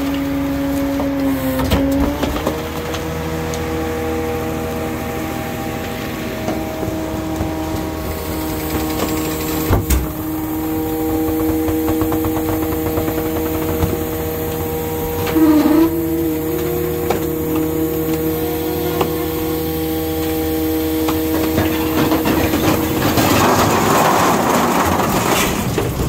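Garbage truck's hydraulic compactor cycling: a steady whine from the engine-driven hydraulic pump that steps up in pitch about two seconds in, with a sharp knock about ten seconds in and a brief dip in pitch as the packer blade loads up midway. Near the end, trash and bottles crunch and rattle as they are compacted.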